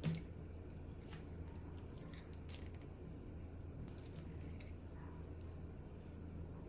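Faint, scattered small clicks and light handling noises from work on the quadcopter parts, over a steady low hum. The strongest click comes at the very start.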